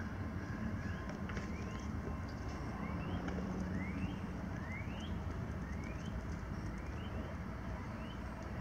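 A bird repeating a short rising chirp every second or so over a steady low rumble.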